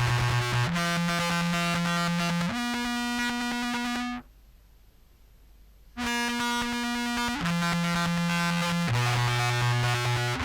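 Contrabass clarinet played through Horizont and Jackson Audio Modular Fuzz pedals: long, heavily fuzzed, synth-like notes that change pitch every second or two. The notes stop for about two seconds near the middle, then resume.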